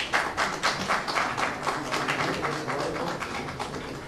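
A group of people applauding, quick claps at a fairly even pace that thin out near the end.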